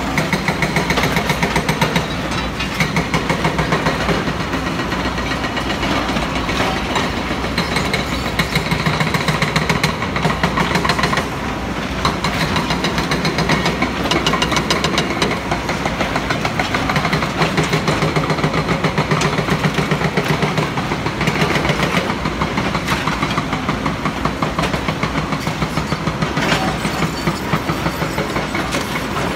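Several hydraulic excavators running their diesel engines, with a dense, continuous rapid clatter of their demolition attachments breaking and crushing concrete rubble.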